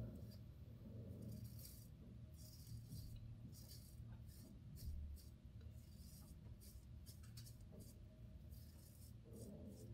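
Faint scraping of a BIC Flex 4 four-blade razor cutting lathered stubble on the neck, in a run of short, irregular strokes.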